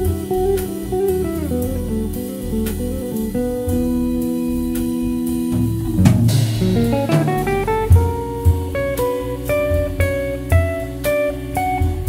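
Live jazz trio: a hollow-body archtop electric guitar picks a single-note melody over held Hammond organ chords, with a drum kit keeping time. A quick swooping run of notes falls and rises about halfway through.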